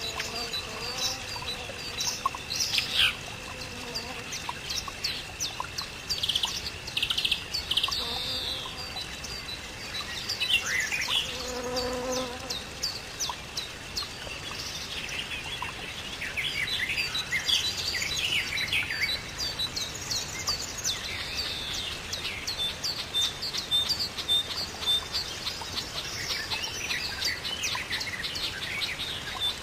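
Several birds chirping and singing together in quick overlapping calls and trills, with a steady high note held for the first few seconds and a brief lower call about twelve seconds in.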